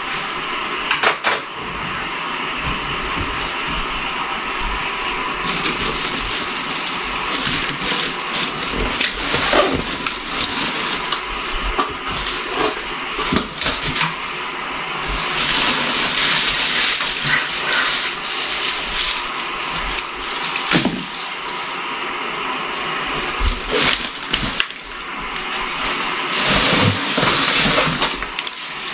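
Artificial Christmas tree branches being handled and spread: continuous rustling of plastic needles with scattered clicks, louder for a few seconds about halfway through.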